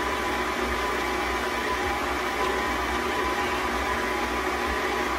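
Electric stand mixer running steadily at a raised speed with a constant hum, its beater whipping mashed potatoes in the bowl.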